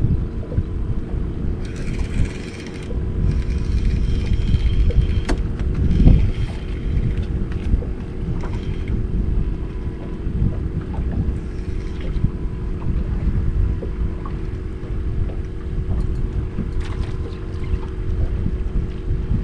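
Wind buffeting the microphone on an open boat, a gusting low rumble over a steady low hum, with a few sharp clicks and knocks.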